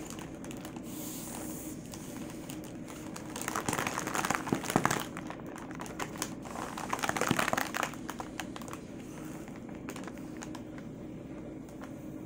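Metallic foil balloon crinkling in the hands as it is blown up through a straw, with two louder spells of crinkling about three and a half and six and a half seconds in.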